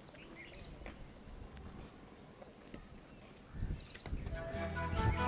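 Faint chirping of crickets and other insects in rural outdoor ambience. About four seconds in, background music with a flute and a low drone comes in and becomes the loudest sound.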